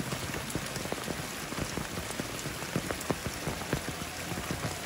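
Rain falling steadily, with many irregular drops striking a nearby surface.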